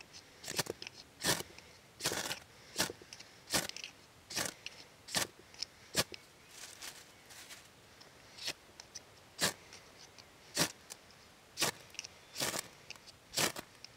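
Fire steel (ferrocerium rod) scraped with a striker to throw sparks onto dry tinder: a sharp scrape about once a second, repeated over a dozen times, until the tinder catches.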